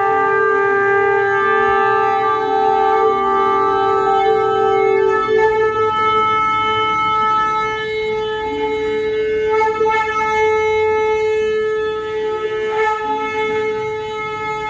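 Conch shells (shankh) blown in long, steady notes. Two conches sound at slightly different pitches until about five seconds in, then one carries on alone, catching briefly a couple of times.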